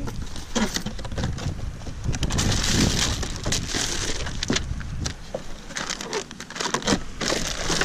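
Plastic packaging and a cardboard box sleeve crinkling and rustling as the parts of a kayak crate kit are unpacked by hand, with many small clicks and knocks.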